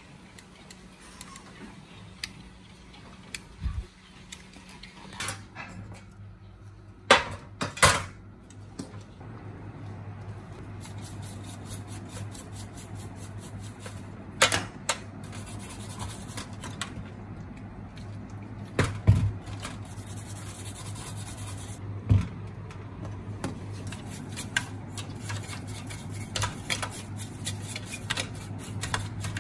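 Metal tools and parts clinking and knocking on a workbench during electronics repair work, with a few sharper knocks. A steady low hum starts about five seconds in and continues under them.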